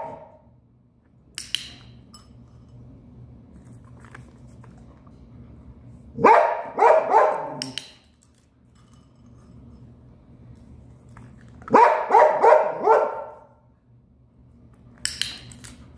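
Springer spaniel barking in two bursts of several quick barks, about six seconds in and again about twelve seconds in: impatient barking for a turn while the other dog gets the treats.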